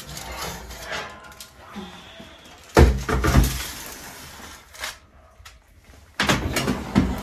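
A foil-covered baking dish being lifted out of an oven and set down on a stainless steel counter: light handling noise, then a sudden loud clatter of metal about three seconds in, and another loud knock near the end.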